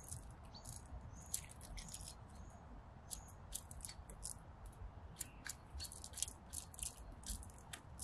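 Great tits calling: many short, high, thin notes in quick succession, some in pairs and quick runs.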